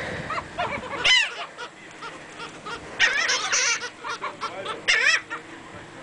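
A flock of laughing gulls calling, many short arched calls overlapping, with the loudest bursts about a second in, around three seconds and near five seconds.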